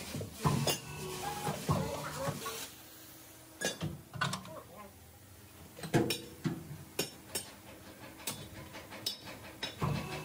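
Irregular sharp metallic clanks and knocks from a truck drum-brake shoe being shifted and pressed on a brake-shoe riveting machine as its lining is riveted on. The loudest knock comes about six seconds in.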